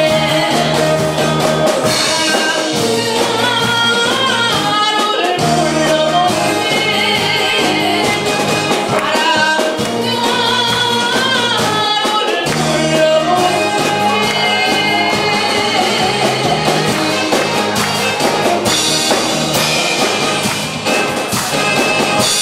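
A woman singing a Korean trot song live into a handheld microphone over loud amplified musical accompaniment.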